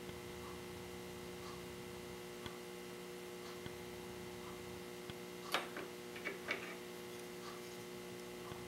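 Quiet workbench room tone with a steady hum and a faint tick about once a second. A little past halfway comes a brief cluster of small clicks and scrapes as a plastic slot car chassis is handled and turned over.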